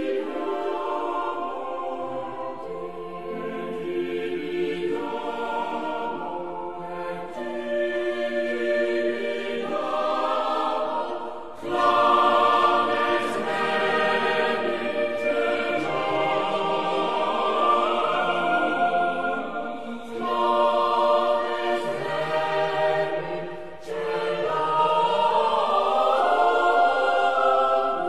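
Background choral music: a choir singing slow, sustained lines, with brief breaks between phrases.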